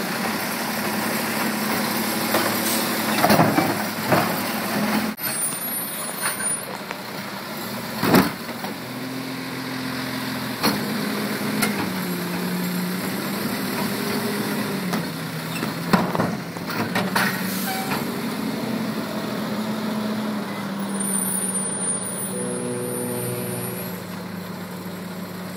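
Automated side-loader garbage truck working: its engine runs steadily, the pitch rising and falling, as the hydraulic arm lifts a wheeled trash cart and tips it into the hopper. Several sharp bangs come from the cart and the arm, about three and four seconds in, again about eight seconds in, and twice around sixteen seconds in.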